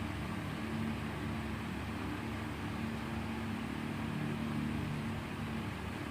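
Steady mechanical hum with a constant hiss and a few held low tones, unchanging throughout.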